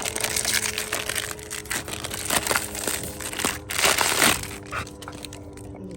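Packaging being handled and crumpled, a dense crinkling and rustling with sharp crackles that dies down after about four seconds.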